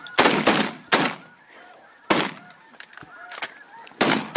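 Shotguns firing at ducks flying over the decoys: four loud shots, one near the start, one about a second in, one at about two seconds and one near the end. Waterfowl keep honking and quacking between the shots.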